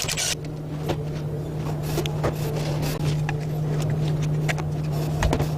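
Scattered light metallic clicks and knocks of hand tools and engine parts as a camshaft is worked out of a pushrod V8, over a steady low hum. There is a brief hiss right at the start.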